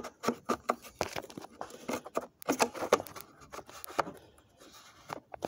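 Irregular plastic clicks, taps and rubbing as a Ford Escape tail light part is handled and fitted back into place.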